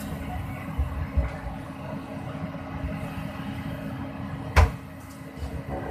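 Excavator's diesel engine running steadily, with a few low thumps about a second in and a single sharp knock about four and a half seconds in.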